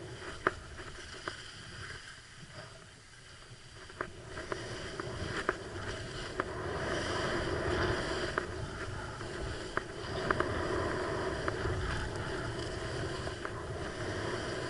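Skis sliding and turning on snow: a steady hiss of the bases and edges, louder from about six seconds in, with scattered sharp clicks and wind on the microphone.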